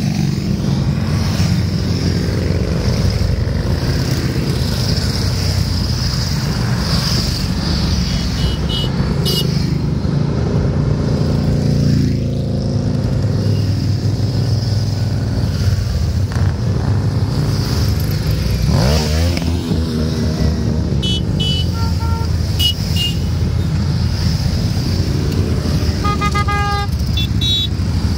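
A long procession of motorcycles passing one after another, engines running steadily. Short horn toots sound several times, about a third of the way in and again near the end.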